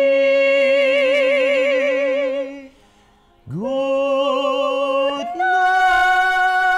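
Classically trained soprano and baritone singing a cappella: a long held note with wide vibrato, a brief breath, then another long note that steps up to a higher sustained note.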